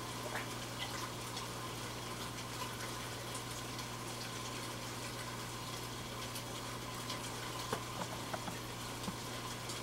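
Aquarium water bubbling and trickling over a steady low hum from the tank's equipment, with scattered small pops and splashes at the surface as fish snap up floating pellets, a few more of them near the end.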